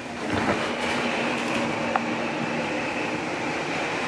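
Steady mechanical rushing noise with a faint hum underneath, stepping up in loudness about a third of a second in, with one light click about two seconds in.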